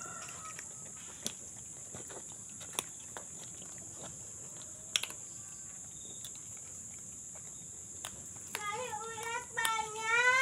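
A rooster crows near the end, one wavering call in two parts. Under it runs a steady high-pitched insect drone, with scattered light clicks.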